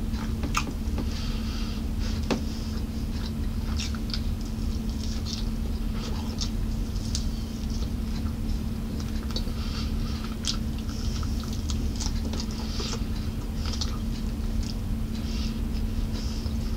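Close-up eating sounds: chewing and lip smacks on a baked chicken wing, with small irregular wet clicks as fingers pull the meat from the bone, over a steady low hum.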